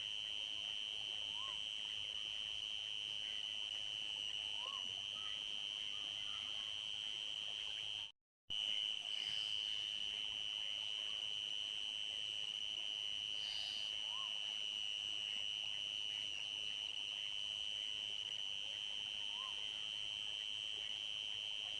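Crickets trilling in a continuous high, steady chorus, with a faint short call repeating every few seconds underneath. The sound cuts out completely for a moment about eight seconds in.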